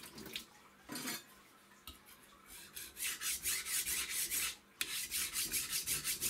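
Water splashed onto a coarse whetstone, then the steel blade of a deba knife scraped back and forth across the wet stone in quick even strokes, about four a second, with a brief pause near the end. This is the coarse-grinding stage of sharpening.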